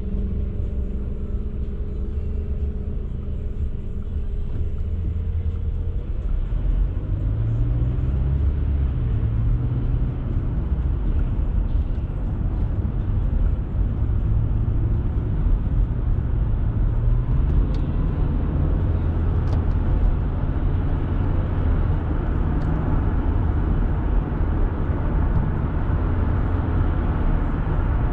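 Car engine and road noise heard from inside the cabin, pulling away from stopped traffic about six seconds in. The engine pitch rises twice as it picks up speed, over a steady low rumble of tyres on the road.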